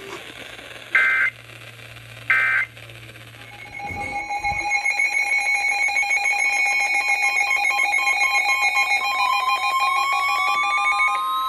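Three short two-pitch digital data bursts about a second and a half apart, the Emergency Alert System end-of-message code, then from about four seconds in a loud electronic alert tone of several stacked pitches pulsing rapidly, with a rising sweep joining it near the end.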